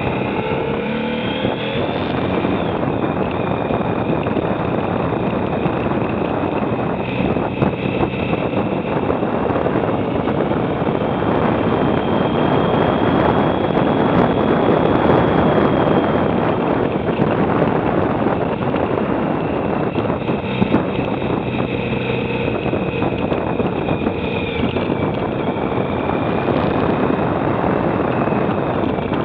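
Motorcycle engine running as the bike rides along, mixed with wind rushing over the camera. The drone is steady, grows somewhat louder around the middle, and the engine pitch drifts up and down with speed.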